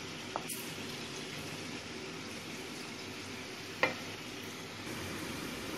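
Cornflour-coated potato wedges shallow-frying in a little oil, a steady sizzle. A metal spatula clicks against the pan faintly about half a second in and more sharply about four seconds in.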